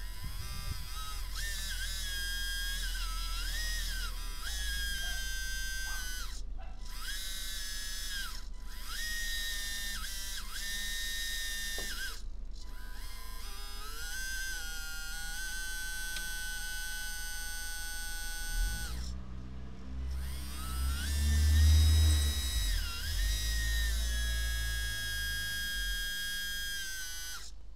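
Small electric motor driving the hydraulic pump of a radio-controlled Bruder Cat 973 track loader conversion, whining as it works the lift cylinders. Its pitch rises, holds and falls again several times, with brief stops between runs. A deeper rumble joins about two-thirds of the way through.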